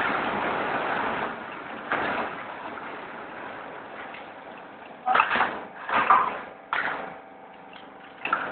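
Roll forming machine for steel gypsum hollow profiles running with a steady noisy hiss that drops off after the first second or so, then several short, sudden, louder clanks or scrapes in the second half.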